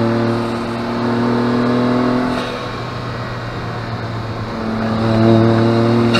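Honda S660's small turbocharged three-cylinder engine running at steady revs, heard from inside the cabin. It eases off about two and a half seconds in and comes back on strongly near the five-second mark.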